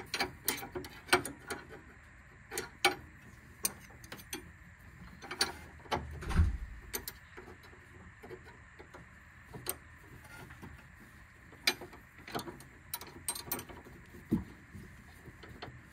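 Scattered sharp metal clicks and ticks at uneven intervals from a wrench and a 6 mm Allen key working the 17 mm nut off a sway bar link whose stud spins. The Allen key holds the stud while the wrench turns the nut. A dull low thump comes about six seconds in.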